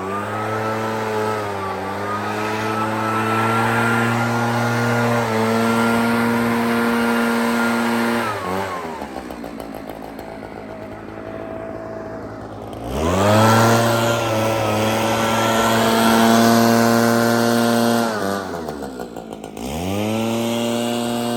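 Two-stroke engine of an Echo PB-9010 backpack blower running at high throttle while blowing snow. About eight seconds in the throttle is let off and the engine drops to idle for a few seconds, then revs back up; near the end it drops and revs up again.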